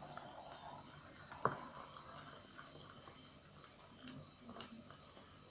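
Glue slime mixture being stirred in a container: faint scraping with a few light clicks and taps, the sharpest click about one and a half seconds in.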